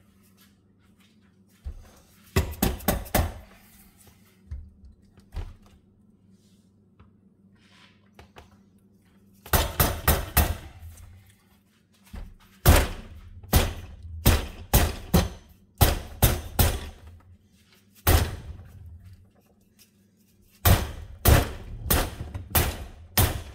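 Repeated hammer blows on the steel deck-height lift lever of a riding mower, being bent back into shape. The blows come in bursts of several quick strikes with pauses between.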